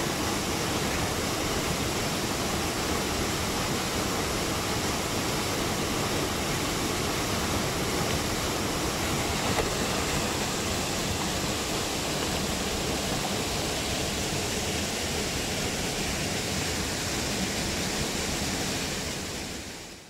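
Steady rushing of a waterfall pouring over rock into a deep plunge pool, filmed close; it fades out near the end.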